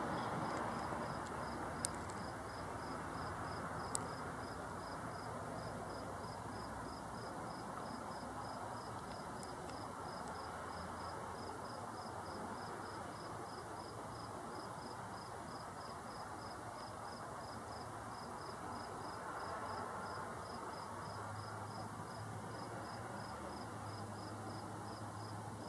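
A cricket chirping steadily at about two chirps a second, over a steady background hiss. Two brief clicks sound a couple of seconds and about four seconds in.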